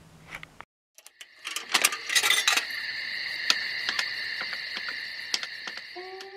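Electric buzzing and crackling of a neon-sign intro sound effect. A dense flurry of crackles about a second in, like the sign flickering on, settles into a steady high buzz with scattered clicks, and a few rising tones come in near the end. Before that come a few faint clicks of the camera being handled, then a brief silence.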